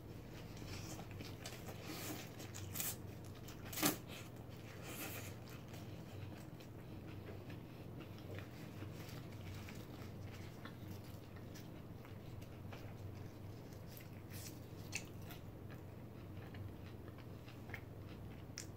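A person biting into and chewing a juicy burger with bacon, grilled pineapple and iceberg lettuce, close to the microphone. It is a soft run of wet mouth sounds and small clicks, the loudest about four seconds in.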